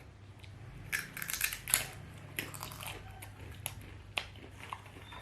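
Potato being eaten close to the microphone: a quick run of sharp crunching bites about a second in, loudest near two seconds, followed by a few scattered single crunches.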